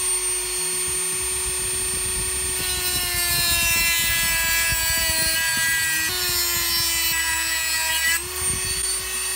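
Dremel 4000 rotary tool with a cut-off wheel running at a high, steady whine, then cutting through the weld of a steel D-ring: a grinding hiss joins in about three seconds in and the motor pitch sags a little under the load. Near the end the pitch rises again as the wheel eases off the metal.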